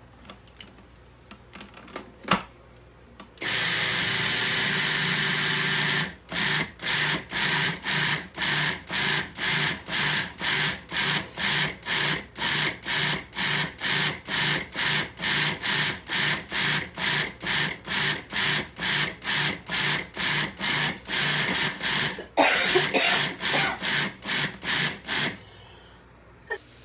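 Food processor mixing flour and egg into pasta dough. It runs continuously for a couple of seconds, then is pulsed on and off about two and a half times a second for some sixteen seconds, and ends with a louder, rougher continuous run of about three seconds. A few light clicks come before it starts.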